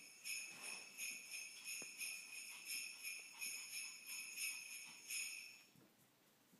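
A small jingle bell ringing in a rhythmic jingle, about three shakes a second, that stops near the end.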